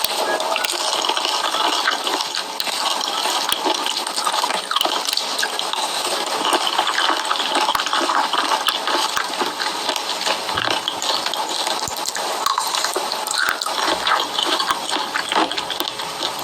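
Wet eating sounds: chewing and smacking, with a dense run of small clicks.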